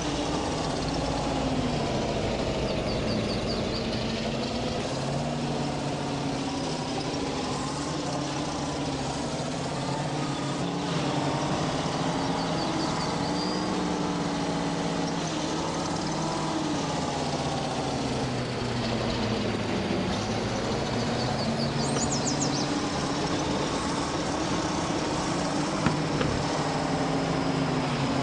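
GAZ vehicle's engine running, its pitch slowly rising and falling as the engine speed changes.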